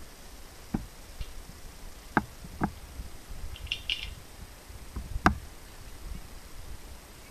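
Metal sheep-pen hurdles being handled: a few sharp separate clicks and knocks, the loudest about five seconds in, with a brief high chirping just before the middle.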